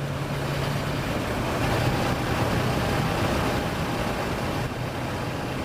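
Kawasaki Versys motorcycle riding along, heard as a steady rush of wind and road noise under a low engine hum that fades about halfway through.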